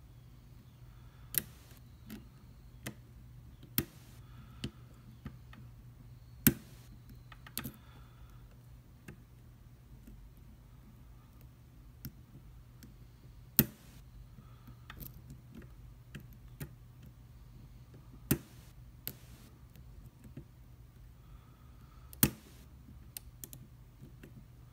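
Lock pick and tension wrench working in a Commando padlock's keyway: scattered small metallic ticks with about six sharper clicks spaced irregularly, as the serrated pins are lifted and set. A steady low hum lies beneath.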